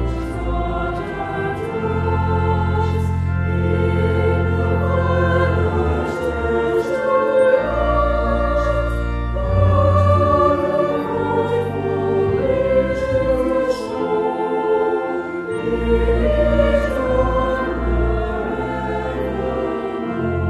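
Choral music: a choir singing a slow piece over long held bass notes.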